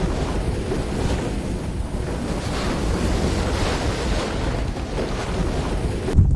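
Storm wind blowing hard across the microphone as a steady rushing noise that swells and eases every second or so, cutting off abruptly near the end.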